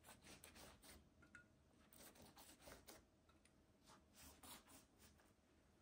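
Faint strokes of a silicone pastry brush spreading a butter and oil mixture over a sheet of rolled-out dough, coming in short runs of a few strokes with brief pauses.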